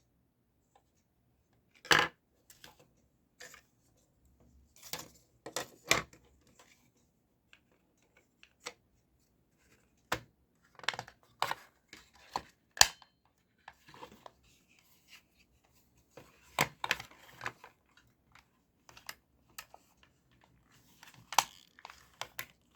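Irregular small clicks, taps and knocks from handling the plastic parts of a toy gun, with a few sharper snaps among them.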